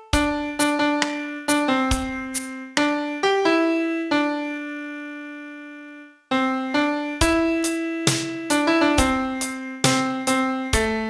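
Piano sound playing a song's vocal melody one note at a time. About four seconds in, one long note is held and fades away, with a short break before the melody picks up again.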